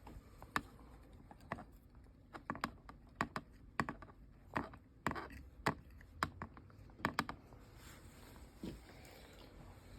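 Faint, irregular small clicks and taps from handling a blower motor's control board and soldering tools during a diode repair.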